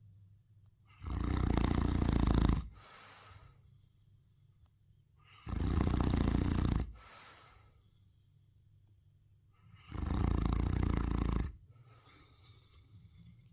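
Neapolitan Mastiff snoring in its sleep: three long, loud snores about four and a half seconds apart, each followed by a shorter, softer breath.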